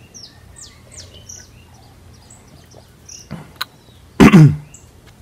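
Small birds chirping again and again in the background. About four seconds in, a man gives a short, loud 'mm' that falls in pitch as he tastes.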